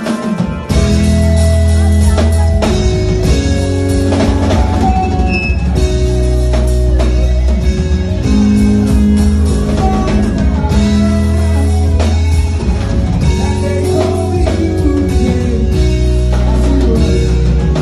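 Loud amplified music with heavy bass and a steady drum beat, kicking in about a second in.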